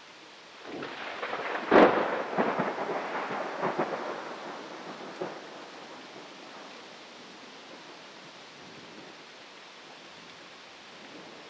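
Close thunderclap: a sharp crack about two seconds in, then a few seconds of crackling rumble that dies away, over steady rain.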